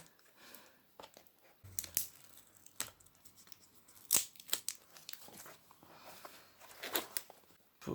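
Handling noises from a laptop screen panel as its display connector is unplugged: scattered, irregular clicks and soft rustling.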